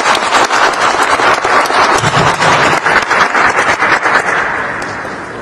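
Audience applauding: dense clapping from many hands that fades away over the last second or so.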